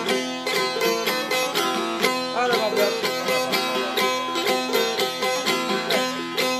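Two long-necked Albanian folk lutes played together, plucked briskly in a quick steady rhythm.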